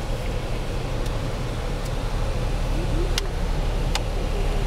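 Steady low rumble of a car's running engine and road noise heard from inside the cabin as the car creeps forward in line, with two faint clicks about three and four seconds in.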